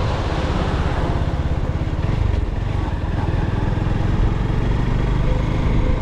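Honda CB190's single-cylinder engine running steadily as the motorcycle rides along the road, with wind noise on the microphone.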